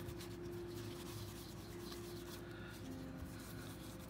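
Paper towel wet with nail polish remover rubbing back and forth over a pistol slide, a faint, steady scrubbing.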